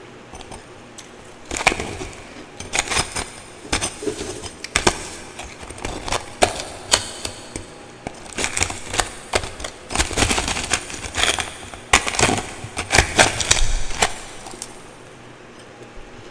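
Close-up chewing of twice-refrozen powdery ice: a dense, irregular run of sharp crunches that starts about a second and a half in and stops shortly before the end.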